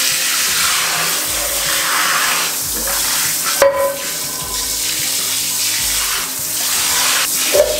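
Water spraying from a hand-held shower head into a cast-iron skillet, splashing on the pan and the water pooled in it as the soapy residue is rinsed off after scrubbing. A brief sharp knock about three and a half seconds in.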